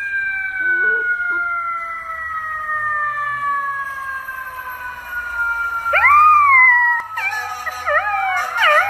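A long, steady wail slowly dropping in pitch, then about six seconds in a golden retriever puppy starts howling: one rising-and-falling howl followed by quick, wavering howls.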